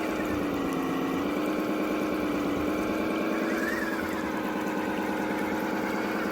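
Engine sound effect from a toy police truck: a steady, idling-like hum that holds an even pitch.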